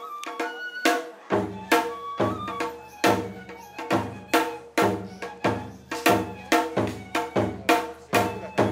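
Tsukuda-bayashi festival music: a transverse bamboo flute plays a melody over stick strokes on a rope-tensioned drum. About a second in, a large barrel drum joins with deep beats.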